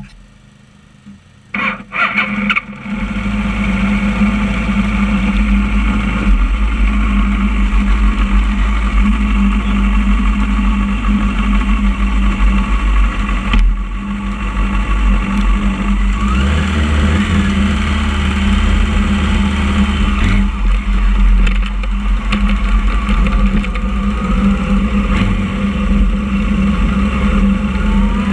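A motorcycle engine being started about two seconds in, catching after a few short bursts, then running steadily close to the microphone. Its pitch rises for a few seconds past the middle before it settles again.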